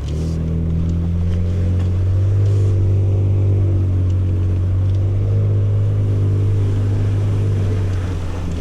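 Ford Ranger Raptor's engine pulling steadily as the truck drives along a trail, a low, even hum at a nearly constant pitch that swells at the start and eases off near the end.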